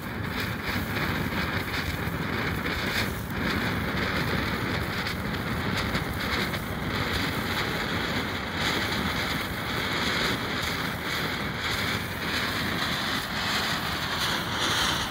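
BEM gold rain fountain firework burning, its spark jet giving a steady rushing hiss.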